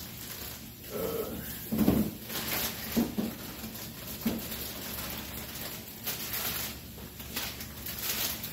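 Rummaging in the bottom of a refrigerator: a few dull knocks of containers being moved, then the crinkle of a plastic produce bag as a bag of lettuce is pulled out.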